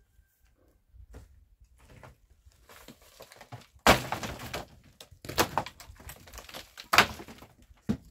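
Three sharp, heavy strikes about a second and a half apart, starting about four seconds in, after a few faint clicks.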